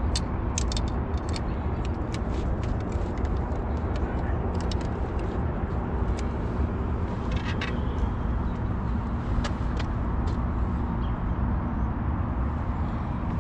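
Steady low rumble of city road traffic, with scattered light clicks and taps throughout.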